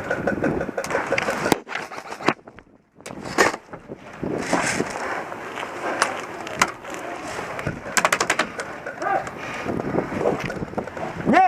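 Airsoft guns firing during a game: scattered single shots and a quick burst of about five shots about eight seconds in, over rustling and clatter from movement and gear.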